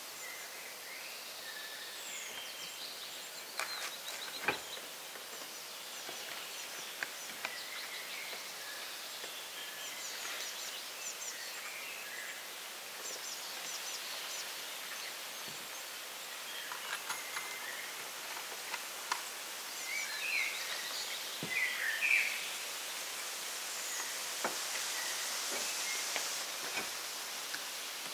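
Forest ambience: a steady background hiss with small birds chirping and calling throughout, and a few scattered sharp knocks.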